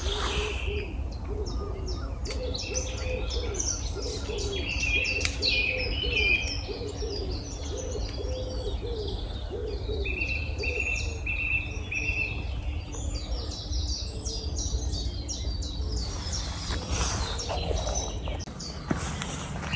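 A pigeon cooing in a long run of low repeated notes that stops about three quarters of the way through, with songbirds chirping and whistling higher up and a steady low rumble underneath.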